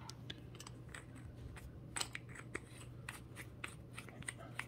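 Tail cap of a GearLight S1050 tactical flashlight being screwed onto the body by hand: a string of faint small clicks and scrapes from the threads.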